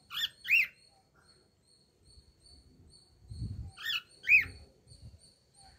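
Cockatiel chirping: two short, arched chirps right at the start, then two more about four seconds in.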